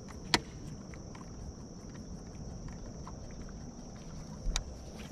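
Steady high-pitched drone of insects in late summer. Over it come two sharp clicks: a loud one about a third of a second in, and a softer one with a low thump about four and a half seconds in.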